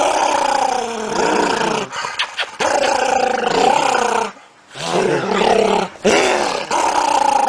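A dog giving long, drawn-out play growls, four in a row with short breaks between, each wavering up and down in pitch.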